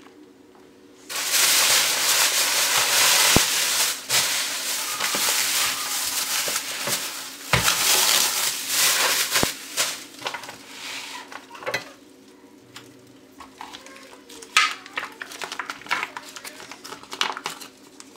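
Thin plastic grocery bag rustling and crinkling loudly as it is pulled off a vacuum-sealed package of pork spareribs. After about ten seconds it gives way to quieter, scattered crinkles and taps of the plastic being handled.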